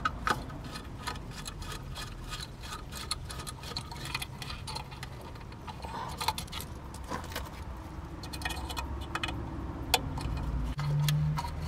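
Screwdriver turning the screws that hold the diffuser on a Jandy variable-speed pool pump: a run of small, irregular metal-and-plastic clicks and ticks.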